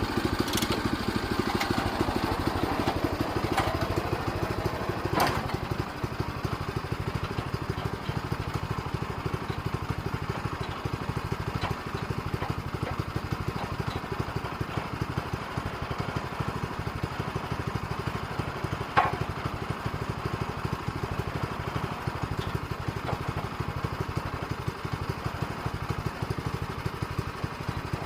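Small engine running steadily at idle, with a couple of sharp knocks about five seconds in and near the middle.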